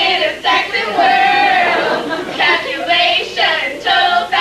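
Voices singing together without instruments, holding long notes with short breaks between phrases.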